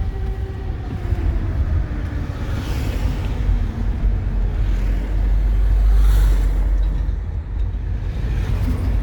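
Air raid siren wailing, its tone sliding slowly down in pitch over the first few seconds and fading, over a heavy low rumble.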